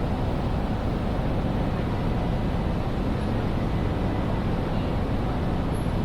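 Ambient din of a large railway station hall: a steady low rumble with no single sound standing out.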